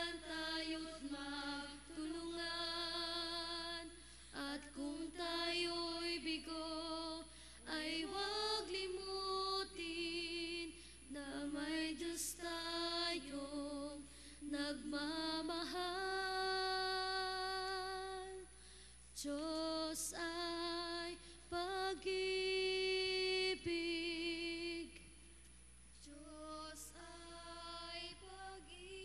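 A woman singing a hymn solo without accompaniment, in sung phrases with vibrato on the held notes and short breaks between phrases.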